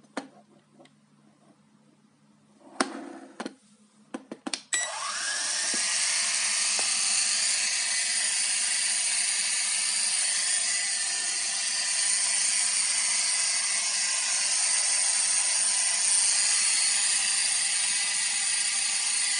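A few handling clicks, then about five seconds in the TIANQU XS809W quadcopter's four small electric motors and propellers spin up with a quick rising whine. They settle into a steady high-pitched whir while the drone stays on the ground.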